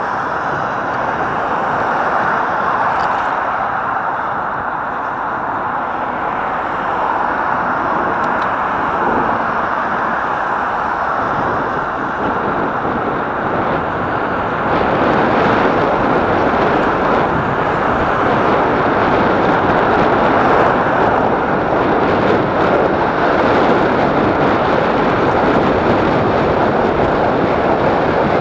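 Steady rushing noise of wind over the microphone and bicycle tyres on asphalt while riding along a city road; it grows louder about halfway through.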